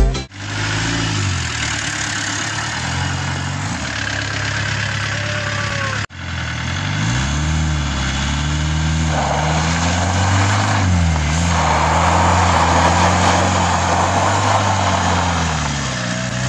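Peugeot 504 pickup's diesel engine revving, its pitch rising and falling several times, with a brief break about six seconds in. From about nine seconds in a rushing noise runs alongside the engine.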